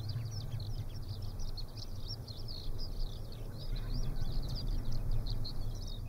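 Calm open-country ambience: many small birds chirping and twittering without pause over a steady low rumble. Mixed into it is the faint sound of a wind turbine running 2 km away.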